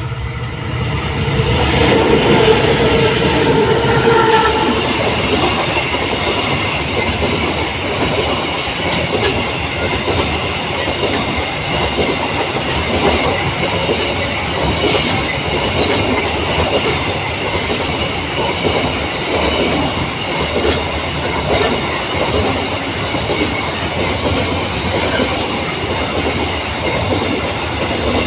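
A train passing close by: a steady loud rumble of wheels on rail with clickety-clack. It opens with a held tone that fades out over the first few seconds.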